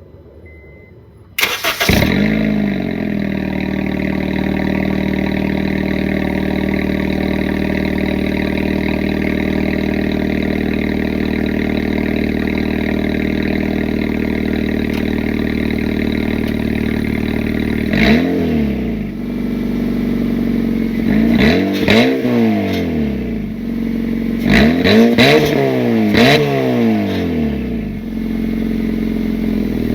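Car engine cranked and started about a second and a half in, then idling steadily; from about halfway on, the throttle is blipped repeatedly, the engine note rising and falling with each rev. The car has an exhaust leak, with exhaust bolts at the catalytic converter loosened or removed.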